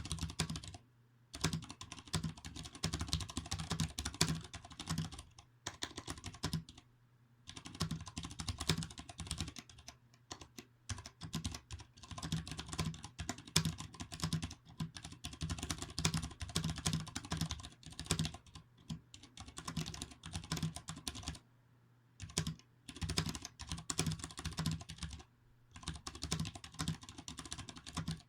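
Typing on a Vortex Race 3 mechanical keyboard with Cherry MX Clear switches, in runs of fast key clicks broken by short pauses. The keys are most likely without O-rings and the keyboard sits on a bare desk, the setup whose metallic ping the O-rings are meant to damp.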